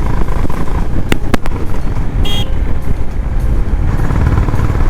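Honda CB350RS's single-cylinder engine running steadily under way, with road and wind noise. A few sharp clicks come about a second in, and a short horn toot about two seconds in.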